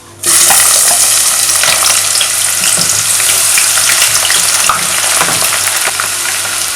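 Onions dropped into hot vegetable oil, sizzling loudly from the moment they hit, about a quarter second in, with a steady hiss and scattered crackles.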